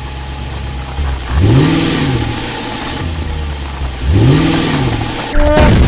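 Vehicle engine sound running steadily under a hiss, revving up and back down twice.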